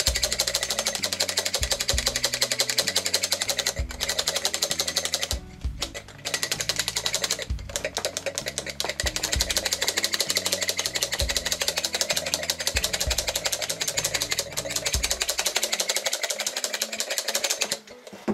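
Hand-held electrostatic static grass applicator buzzing as it is shaken over a model tree, dropping out briefly about five and a half seconds in and switching off near the end. Background music plays underneath.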